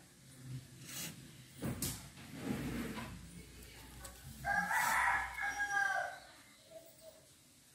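A rooster crowing once, one long call about halfway through, after a few soft knocks.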